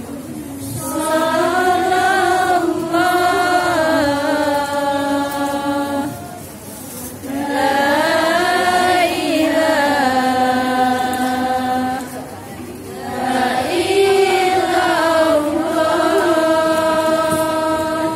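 Women's voices chanting sholawat, Islamic devotional praise of the Prophet, in long melodic phrases with sliding held notes. Three phrases are heard, each a few seconds long, with a short breath-pause between them.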